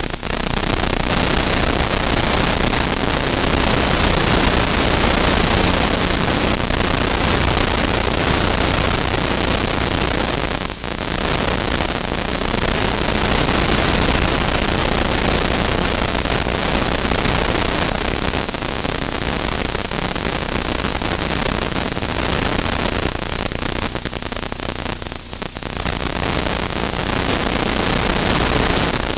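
Steady, loud static-like hiss with a low hum underneath, dipping briefly about 11 seconds in and again about 25 seconds in.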